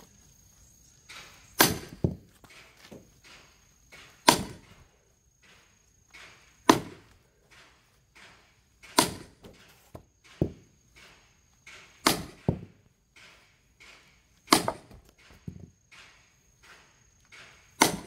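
A sledgehammer pounding on steel driven into a log to split it, seven heavy ringing metal-on-metal blows about every two and a half seconds, with lighter knocks between. The log is knotty and does not split under these blows.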